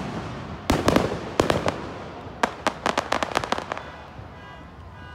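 Aerial fireworks bursting overhead: loud sharp bangs in quick clusters, then a rapid run of crackling that dies away. Near the end a faint alarm starts sounding, set off by the blasts.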